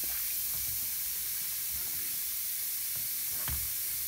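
Baking-soda fizzing of an effervescent seashell toy capsule dissolving in a pot of water: a steady hiss with a few faint small pops, one a little clearer near the end.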